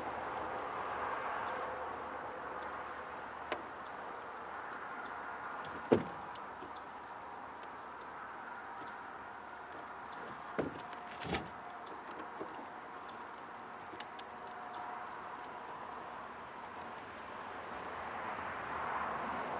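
Scattered clicks and knocks of a hand screwdriver tightening the mounting screws of a pickup's third brake light, the loudest about six seconds in and a small cluster a few seconds later, over a steady background hiss.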